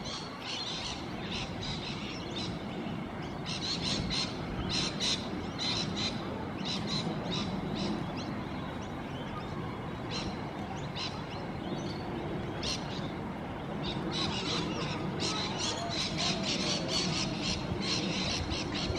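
Birds calling in quick, repeated high squawks and chirps throughout, over a steady low sound from a steam locomotive moving slowly.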